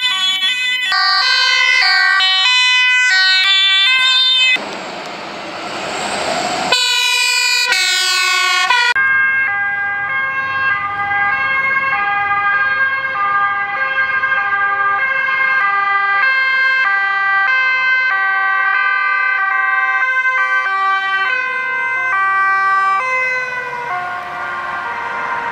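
Dutch police cars' two-tone sirens, the pitch stepping back and forth between two notes as the cars drive past. About five seconds in, a rush of engine and road noise from a passing vehicle briefly takes over.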